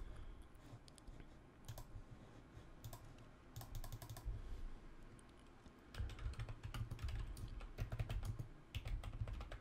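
Typing on a computer keyboard. A few scattered clicks come in the first half, then a quick run of keystrokes from about six seconds in.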